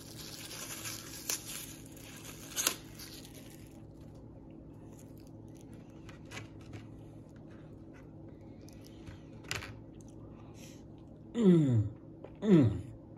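Plastic wrapper crinkling as a plastic-wrapped spoon is unwrapped, with a few light clicks of the spoon in the dessert container. Near the end come two loud, falling "mmm" hums of enjoyment while eating.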